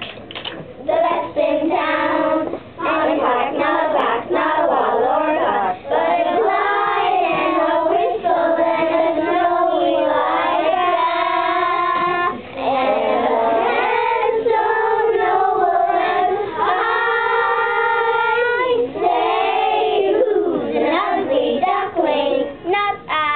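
A group of young children singing a song together, holding a few long notes.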